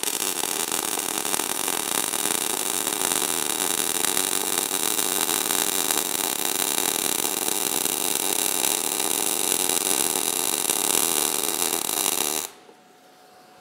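MIG welding arc from an ESAB EMP 215ic set to zero inductance, crackling steadily as the wire short-circuits into the puddle and throws a lot of spatter. It stops suddenly about twelve and a half seconds in.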